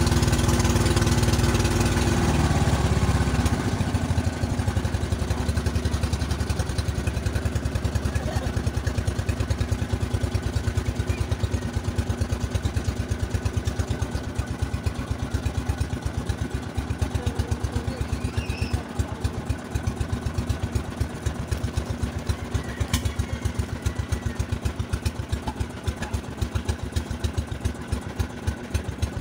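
Small boat engine running steadily at speed. About three and a half seconds in it drops to a slower, evenly pulsing beat and keeps running that way.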